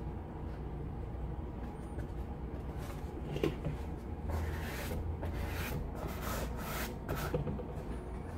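Handling noise: a Birkenstock Boston EVA foam clog is rubbed and shuffled against its cardboard shoe box, giving several short rustles and a light knock a few seconds in, over a steady low hum.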